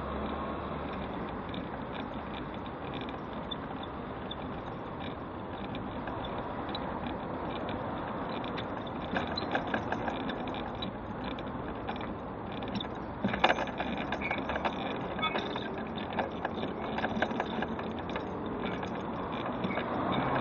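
Electric mobility scooter riding along a paved pavement, with a steady hum of road traffic passing alongside. From about halfway in, a run of small clicks and rattles, with one sharper click about two-thirds through.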